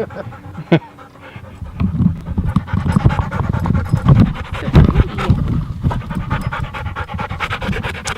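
A dog panting rapidly, close by, with low thumping noise from about two seconds in.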